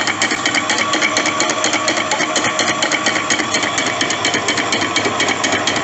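Donkey water pump running with a loud, fast knocking rattle. The noise comes from oil that has run low in the pump motor through a leak.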